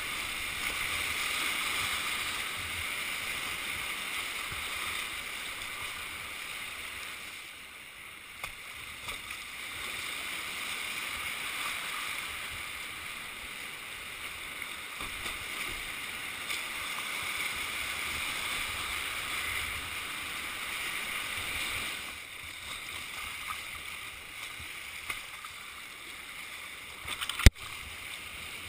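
Whitewater rapids rushing around a kayak, a steady hiss picked up by a helmet-mounted GoPro, easing briefly twice. A single sharp knock comes near the end.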